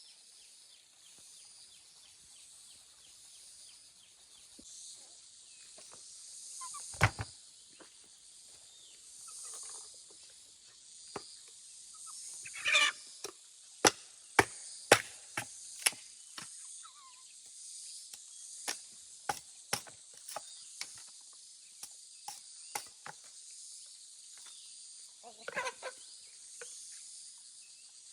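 Insects chirring steadily, with a string of sharp knocks and taps, the loudest about seven seconds in, and two short scraping rustles, one in the middle and one near the end.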